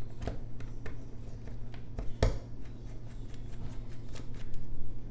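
Small metal repair tools clicking and tapping against a phone screen's small parts and screws, with one louder click about two seconds in, over a steady low hum.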